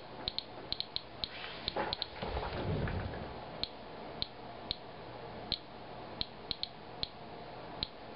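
Inspector Alert Geiger counter clicking at random intervals, about two clicks a second, each click one detected count. The rate shows a rain sample reading roughly four times background radiation.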